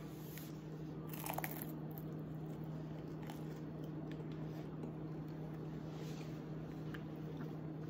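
A bite into a crisp fried egg roll about a second in, then quiet chewing, over a steady low hum.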